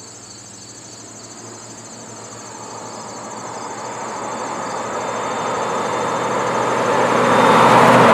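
A rushing noise that swells steadily louder for about eight seconds, over a steady low hum and crickets chirping.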